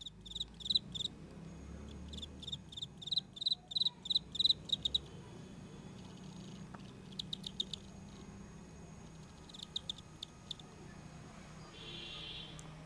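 Insect chirping in repeated trains of rapid high-pitched pulses, each train lasting from under a second to a few seconds with pauses between, over a faint steady low hum.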